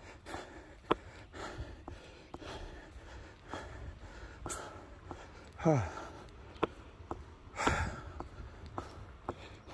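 Footsteps on paving at a brisk walking pace, about two a second, with a person's breathing close to the microphone. A short falling tone sounds about six seconds in.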